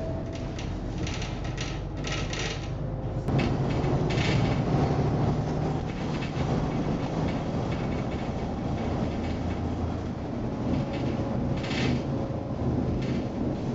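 MCW Metro-Scania single-deck bus under way, heard from inside the saloon: a steady engine drone with rattles from the body and fittings. The engine gets louder about three seconds in.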